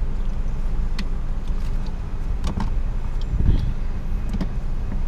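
Steady low rumble of a car heard from inside the cabin, with a few light clicks and knocks, the clearest about three and a half seconds in.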